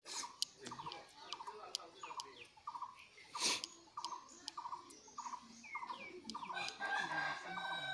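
Animal chirping: a short trilled chirp repeated about twice a second, with higher falling chirps and sharp clicks scattered among them.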